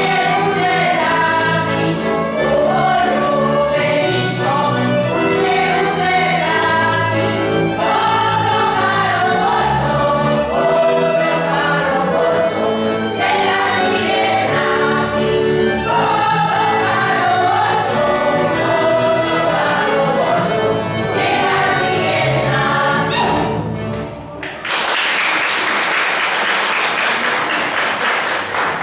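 Women's folk choir singing a Slovak folk song in harmony, with a folk band of violin, accordion and double bass. The song ends about 24 seconds in and the audience applauds.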